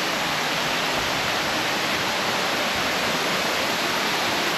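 Water pouring over a small waterfall: a steady, unbroken rushing.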